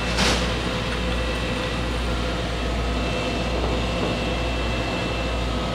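Steady hum of running shop machinery: a low drone with a faint steady whine. A short rushing noise comes about a quarter second in.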